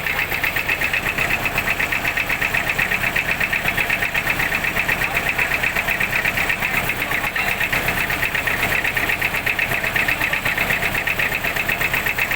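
Road construction machinery running steadily, its engine giving a rapid, even pulsing beat with a bright rattling edge.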